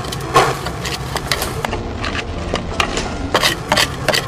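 Power tool running with a steady low hum and many irregular knocks and scrapes as a hole is drilled at the bottom of a pillar.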